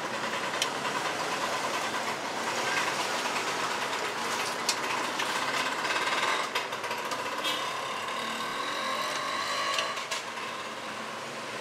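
Street traffic ambience: a steady wash of motor engines running, with a few faint clicks and knocks.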